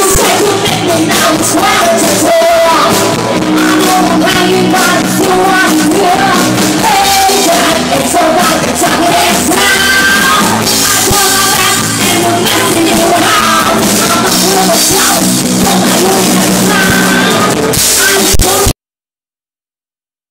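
Live band playing loud music with singers on microphones, keyboard, drums and guitar. The sound cuts off abruptly near the end.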